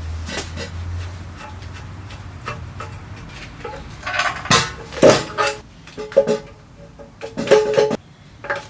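Metal parts knocking and clanking together with short ringing tones, several sharp strikes clustered from about four to eight seconds in. A low hum fades out in the first few seconds.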